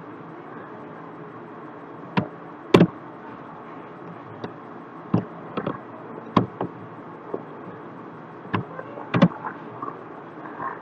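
About a dozen sharp, irregular clicks and taps from a computer mouse and keyboard, over a steady low hum.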